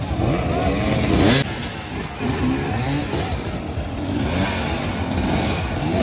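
Dirt-bike engines revving, their pitch rising and falling as several bikes work at once, with one loud rev peak about a second in.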